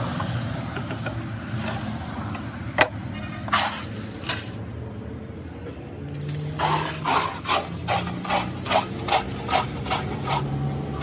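Hand work filling steel tile moulds with a red stone-chip mix: a sharp knock about three seconds in, then from about halfway a run of about ten quick rhythmic strokes, two to three a second, over a steady low machine hum.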